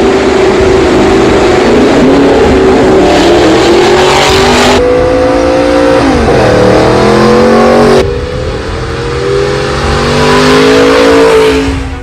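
Audi R8's 4.2-litre V8 running loud through a tuned exhaust at high revs. About six seconds in the pitch drops and climbs again, then near the end it rises in one long pull as the car accelerates, with abrupt cuts between takes.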